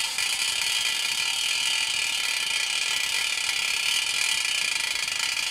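Stainless steel camp pot, aluminium tent-stake supports and stainless cutlery-caddy stove rattling together over a lit Trangia alcohol burner, a steady, rapid metallic racket as the setup heats. The owner puts it down to the stainless steel and aluminium expanding at different rates in the heat.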